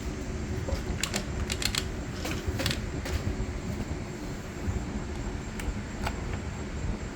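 Light clicks and clinks of the pole saw's bar, chain and cover being handled, bunched in a quick run between about one and three seconds in, with a couple more later, over a steady low rumble.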